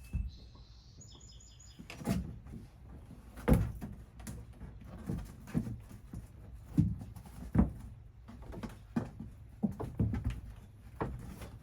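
Irregular knocks and bumps, about a dozen, some much louder than others, from a thin plywood wall panel being handled and fitted against the van's wooden framing. A brief run of high chirps comes about a second in.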